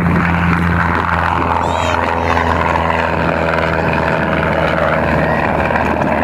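Single-engine propeller plane at takeoff power, a steady loud drone from its engine and propeller as it lifts off and climbs out, its pitch sagging slightly as it goes by.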